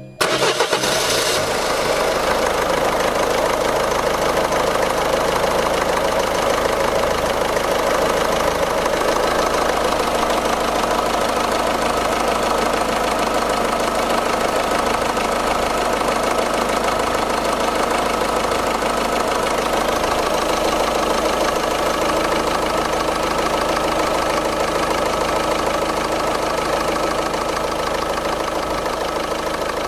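1.6 HDi four-cylinder diesel engine idling steadily after the auxiliary drive belt and automatic tensioner replacement, the new belt turning over its pulleys. The sound comes in abruptly at the start and holds an even level throughout.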